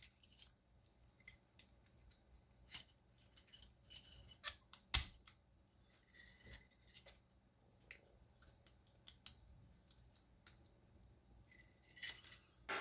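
Metal warded lock tools scraping and clicking in the keyway of a cheap warded lock as it is worked, with light metallic jingling. The clicks are irregular, bunched about three to five seconds in and again near the end, with quiet stretches between.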